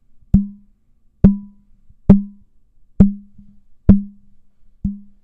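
Fingertip taps on the body of a Soyuz 1973 condenser microphone, picked up by the tapped microphone itself: six taps a little under a second apart, each followed by a brief low ring that dies away quickly. The ring is the microphone's own body resonance.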